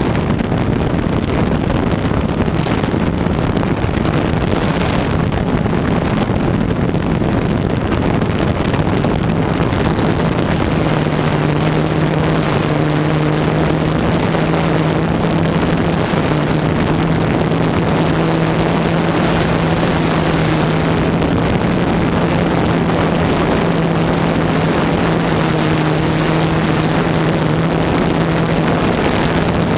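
Multirotor camera drone's motors and propellers buzzing steadily in flight, picked up by the onboard microphone, with a steady pitched hum becoming distinct about a third of the way through.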